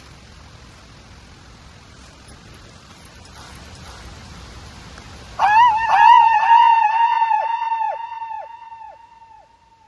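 A high, wavering yell with an echo effect on it: the same call repeats about twice a second, fading away over about four seconds. Before it comes steady rustling outdoor noise.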